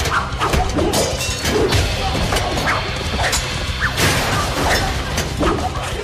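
Fight-scene soundtrack: rapid punch and kick hits and whooshes, with short grunts, over background music with a steady low beat. A loud crash comes about four seconds in, as a body smashes into a metal ladder.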